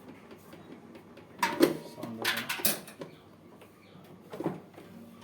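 Hard parts of a front-load washing machine being handled during a drum bearing replacement: a few knocks and clatters, the loudest about a second and a half in, a quick cluster around two and a half seconds, and one more near the end.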